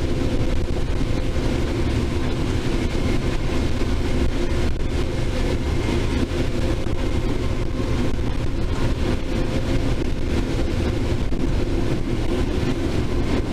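Case IH 7130 combine running steadily while picking corn, a constant engine and machinery drone.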